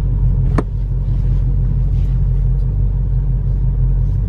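Ford Shelby GT350's 5.2-litre flat-plane-crank V8 running steadily at low speed while driving, a deep even rumble, with a single sharp click about half a second in.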